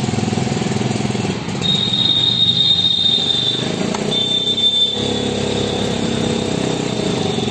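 Steel puller screw being turned down on a motorcycle's self-starter clutch assembly, squealing metal on metal as a thin high steady squeal in two stretches of roughly two and three seconds. A steady low engine-like running noise continues underneath.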